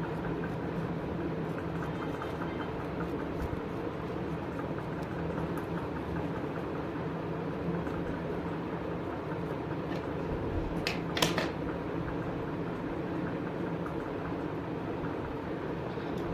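Steady machine hum with a few constant low tones, and a brief scratchy noise about eleven seconds in.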